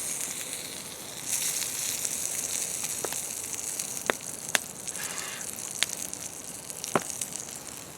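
Duck breast sizzling skin-side down on a hot rock over a campfire, its fat rendering out of the skin: a steady hiss that gets stronger about a second in, broken by five or six sharp pops.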